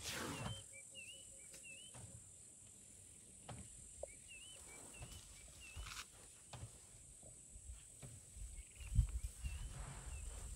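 Bush ambience: a steady high insect drone with short bird chirps coming in a few times. Low rumbling bumps come in near the end.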